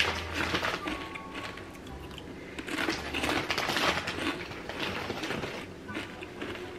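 Irregular clinks, taps and rustling as items are handled and moved about on a kitchen counter.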